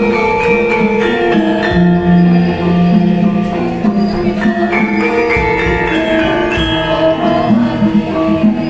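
Javanese gamelan ensemble playing a gending. Bronze saron metallophones struck with wooden mallets ring in a steady pattern of strokes over hanging gongs and a kendang drum, with singers' voices through microphones.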